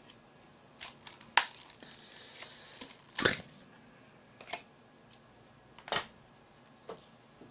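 Plastic clicks and taps from disposable takeout trays and sauce cups being handled and set down: about half a dozen short, sharp clicks spread out, the loudest about a second and a half in.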